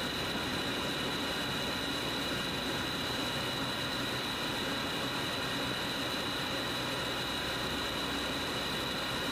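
Steady cockpit noise of a Zenith CH 650 light aircraft on final approach: its UL Power engine and the airflow come through as an even hiss with a thin high whine.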